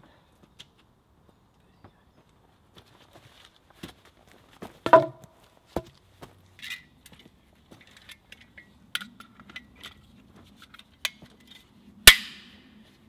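Handling of wood and a hand tool: scattered knocks and clicks. A loud knock with a brief ring comes about five seconds in, and a sharp click with a short ringing tail comes near the end.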